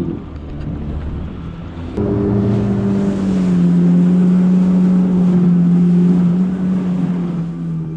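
Yamaha FX HO jet ski's four-stroke engine running under way, a steady drone that gets louder about two seconds in, with water and wind noise over it.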